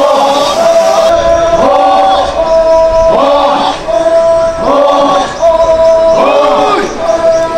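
A group of Naga men chanting together: a steady held note runs under short rising-and-falling sung phrases that come round about every one and a half seconds.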